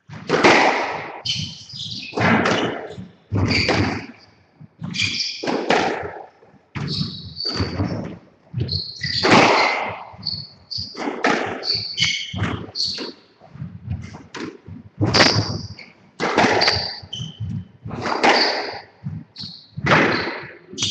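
Squash rally: the ball cracks off rackets and the court walls about once a second, each hit echoing around the court, with shoes squeaking on the wooden floor between shots.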